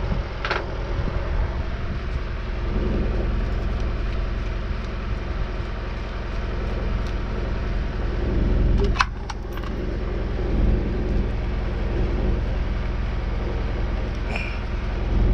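A steady low rumble under small clinks and rattles of hand tools and chain as wiring connections are worked loose on a boat's inboard engine, with a sharp click about nine seconds in.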